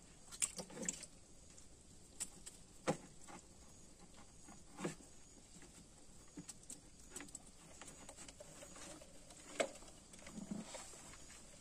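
Scattered small clicks and knocks from hands handling a cylindrical shrimp trap in a wooden canoe, with a few sharper knocks over a faint, steady high hum.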